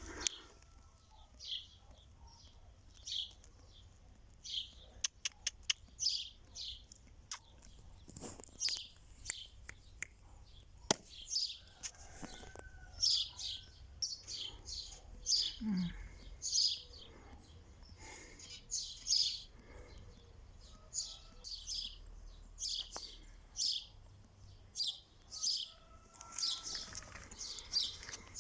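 Small birds chirping: many short, high chirps repeating every second or so, with a few sharp clicks in between.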